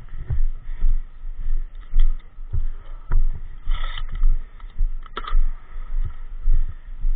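Footsteps and gear rubbing on a body-worn camera's microphone, giving uneven low thumps about twice a second, with a short hiss just before the middle and a couple of sharp clicks.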